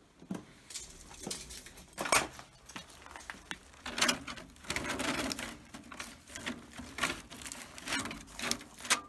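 Gloved hand flipping through old hanging file folders in a metal filing-cabinet drawer: dry paper rustling, with the folders knocking and clicking as they are pushed over, in an irregular run of strokes.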